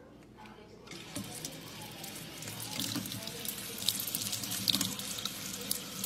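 Kitchen faucet running, its water stream splashing into the sink. The flow starts about a second in and grows louder.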